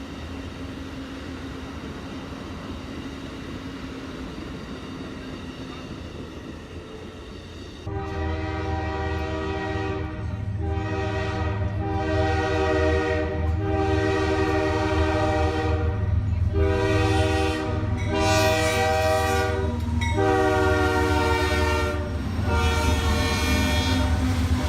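Locomotive rumbling in, then about eight seconds in its multi-note air horn sounds a chord in a string of long and short blasts over the engine's low rumble, a railfan horn show.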